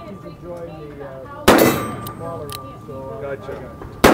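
Two shots from a Kimber K6s DASA stainless revolver, a .357 Magnum, fired about two and a half seconds apart: one about a second and a half in, the second at the very end. Each is a sharp crack that rings on briefly.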